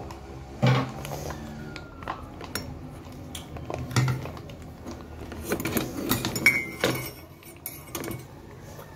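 Scattered clinks and knocks of dishes and cutlery on a table, mixed with the crinkling of a plastic ketchup pouch being squeezed by hand, a few of the knocks with a dull thud.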